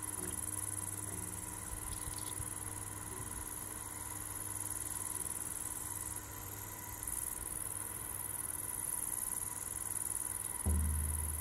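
Crickets chirring steadily and continuously. Near the end, a single deep beat on a large hide frame drum, struck with a soft beater, booms and rings out.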